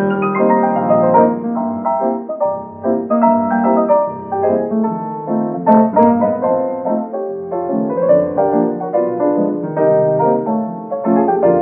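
Solo piano playing a melody over chords, the notes changing constantly.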